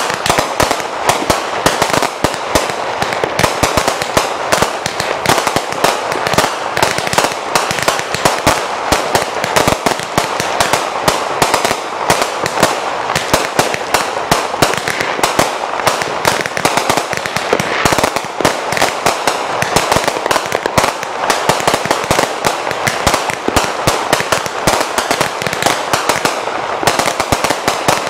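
Aerial fireworks going off in a dense, unbroken barrage: rapid overlapping pops, launches and crackling bursts with no pauses.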